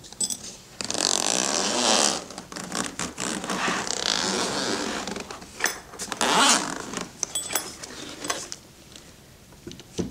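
Zipper of a GoPro Karma carrying case being pulled open around the case in several long strokes, followed by a few light clicks and knocks.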